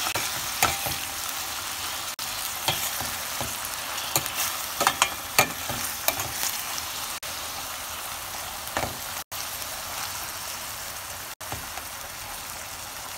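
Saltfish, onion, tomato, scallion and pepper sizzling in oil in a stainless steel pan, stirred with a utensil that clicks and scrapes against the metal now and then, most often around four to five seconds in. The sound cuts out for an instant twice near the end.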